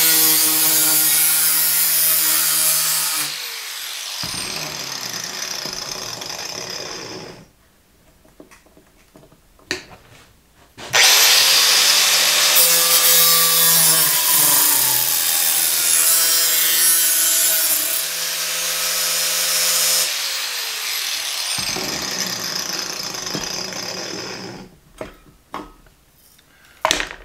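Angle grinder with a cut-off wheel cutting through a steel food can, spraying sparks, in two long runs separated by a pause of about three seconds. The motor whine drops in pitch as the wheel bites into the metal. A few short knocks near the end as the grinder and can are set down.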